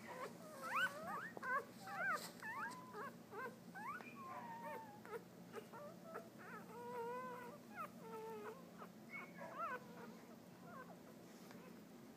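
Newborn Mini Australian Shepherd puppies squeaking and whimpering: many short, high cries that glide up and down and overlap, thinning out near the end.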